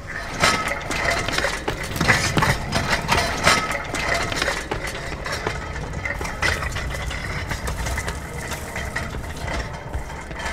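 An engine running with a low, steady rumble, with many clattering knocks in the first few seconds.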